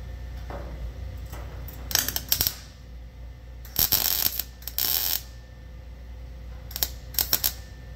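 Welder laying a series of short tack welds that fix the end of a 1967–69 Camaro's replacement quarter panel to the rocker so the panel cannot shift. There are about five brief bursts of welding arc, each half a second or less, with pauses between them.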